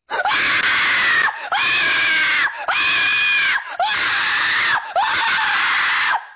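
Five loud, harsh screams in a row, each about a second long, each jumping up in pitch at the start and holding there.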